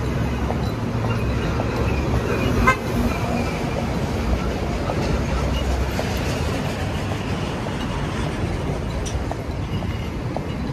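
Busy city street traffic: a steady rumble of engines and tyres, with a short car horn toot and a sharp bang about two and a half seconds in.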